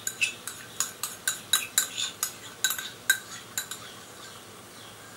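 Quick metallic clinks of kitchenware, about four a second for the first three and a half seconds, each with a short ring, as beaten curd is knocked out of its cup into a metal cooking pan.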